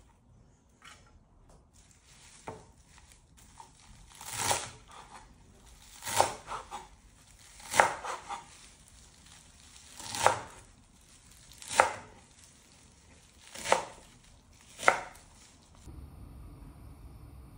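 Slow, irregular chopping knocks on a kitchen cutting board, about one every one and a half to two seconds, with a couple of quick double strikes.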